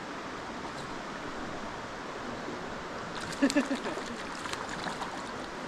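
Mountain stream water rushing steadily over riffles and boulders, with a brief faint voice a little past halfway through.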